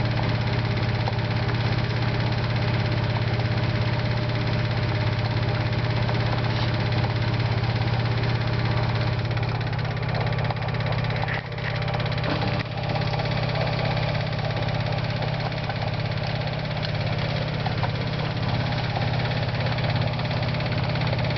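LG 12B8ND front-loading washing machine on its spin cycle: a steady low hum with occasional faint clicks. The clicking is an unwanted noise the owner traces to the lower right side of the machine; it comes whether the drum holds little or much laundry, and not when the empty drum is turned.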